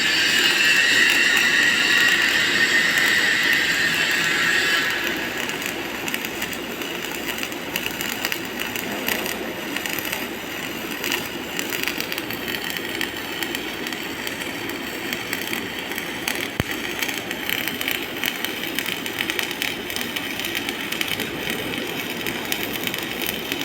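MIG welding arc crackling and sizzling steadily. It is louder and shriller for about the first five seconds, then settles into an even crackle.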